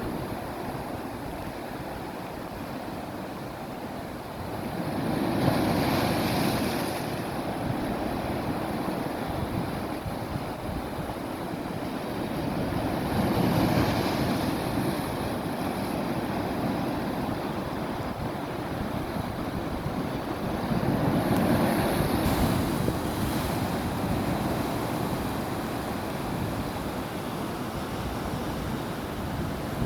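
Sea waves washing over rock pools on a rocky shore: a continuous wash of surf that swells louder roughly every eight seconds as each wave comes in, then falls back.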